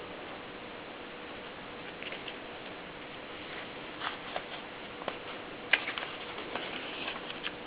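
Contessa typewriter clicking in irregular strokes: a couple of light clicks about two seconds in, single strokes a little later, then a quick run of sharper clicks in the last two seconds, over a steady hiss.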